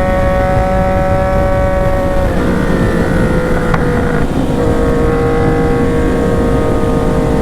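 Yamaha MT-09's three-cylinder engine pulling at high, fairly steady revs while riding, its pitch easing down a little about two seconds in and again about four seconds in, with wind rush underneath.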